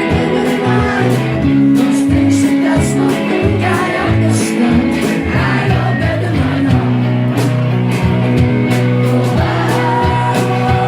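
Rock song: a male voice singing over guitar and a steady drum beat.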